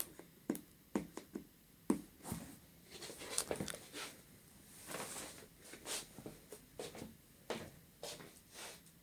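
Hands handling a smartphone's retail box and packaging: irregular clicks, taps and short rustles.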